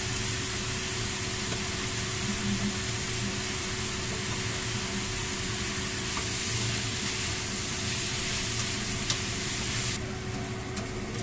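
Food sizzling in a frying pan on a gas stove as it is stirred with a spatula, with a few light clicks of the spatula on the pan. The sizzle is steady, then falls off sharply about ten seconds in.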